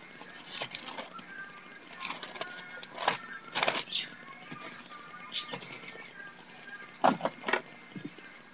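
Scattered rustles and soft knocks of a spiral-bound paper sketchbook being handled close to the microphone, with the loudest bunches about three seconds in and again near the end.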